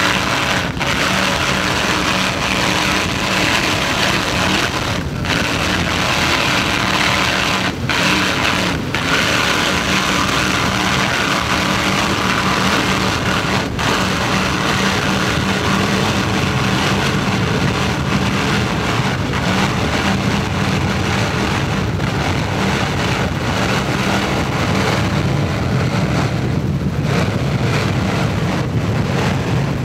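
High-performance catamaran powerboat's engines running at speed, a steady drone over the rush of water and wind; the sound cuts out very briefly a few times.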